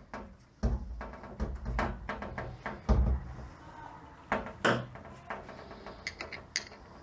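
Clicks and knocks of metal transmission parts and hand tools being handled on a workbench, with heavier thumps about a second in and again around three seconds.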